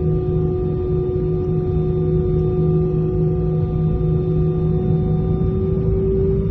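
Airliner engines humming, heard from inside the passenger cabin: a steady whine of several held tones over a low rumble, one tone edging slightly higher near the end.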